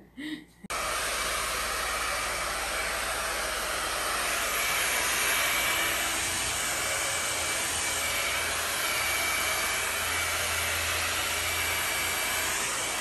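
Handheld hair dryer blowing on wet hair: a steady, loud rush of air with a faint whine, starting suddenly about a second in.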